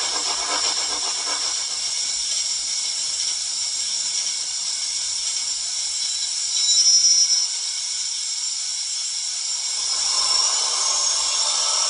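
Steam locomotive sounds from a YouChoos sound decoder in a Hornby Royal Scot model, playing through its small speaker: a steady hiss of steam. A louder, higher blow lasts about a second near the middle, and the sound builds again near the end.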